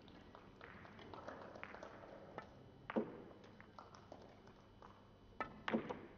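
Sharp clicks of billiard balls striking each other on neighbouring tables in a billiards hall. The clicks are scattered and faint, with a louder one about three seconds in and two more near the end.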